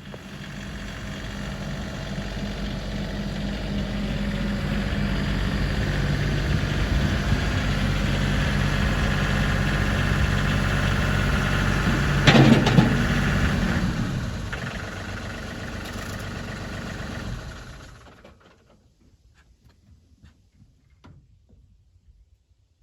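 An engine running steadily, getting louder over the first several seconds, with a brief loud clatter about halfway through, then stopping abruptly.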